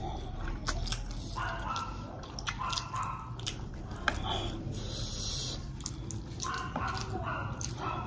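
Close-miked eating sounds: wet chewing, lip smacks and slurping of momos and noodles, with many short clicks and brief slurps over a low steady hum.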